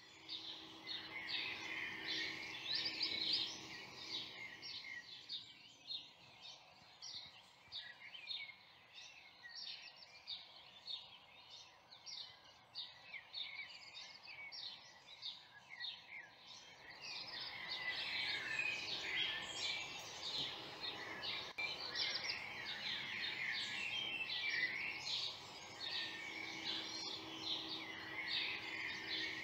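A woodland chorus of songbirds: many overlapping chirps and trills, growing busier about halfway through.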